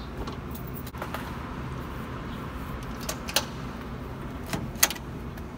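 Onity HT24 card-key door lock's lever handle and latch clicking as the levers are worked, a handful of sharp clicks with the loudest about three and a half and about five seconds in, over a steady low hum.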